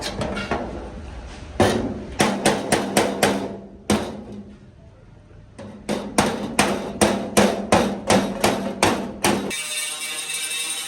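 Hammer blows in two runs of quick, regular strikes, about three a second, over a steady hum. Near the end the hammering stops abruptly and background music comes in.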